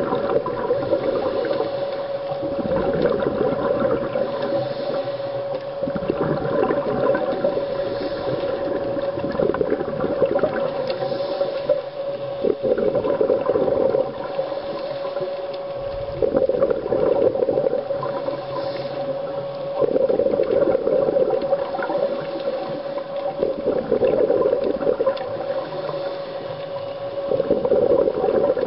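A scuba diver breathing through a regulator underwater: the exhaled bubbles gurgle out in surges every three to four seconds, over a steady hum.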